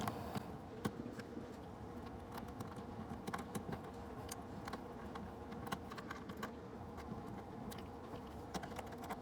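Light, irregular clicking and ticking as a screw is turned into the plastic latch lever of a ZooMed enclosure, under a faint steady hum.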